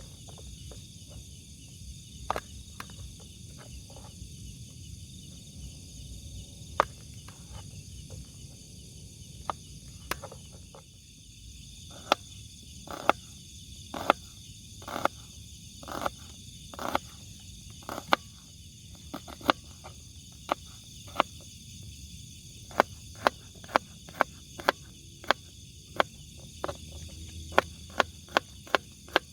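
Steady chorus of crickets, a continuous high shrill trill. Over it come sharp clicks, the loudest sounds: scattered at first, then about one a second from around the middle, and quicker near the end.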